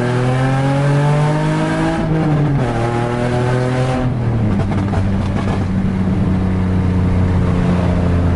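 Nissan 350Z's V6 exhaust, loud and ugly with a major exhaust leak that makes it sound like open headers. The engine pulls up in revs, drops at a shift about two seconds in, pulls again, then shifts once more about four seconds in and settles to a steady cruise.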